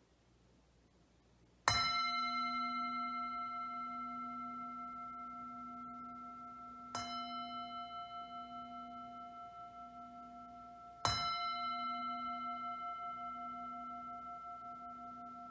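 A bell struck three times, about five and four seconds apart, the second stroke softer. Each stroke rings on as a low hum with several higher tones, fading slowly with a pulsing wobble.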